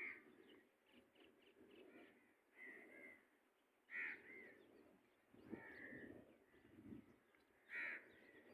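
Faint, harsh bird calls, five short ones spaced a second or two apart, over a low rustling background.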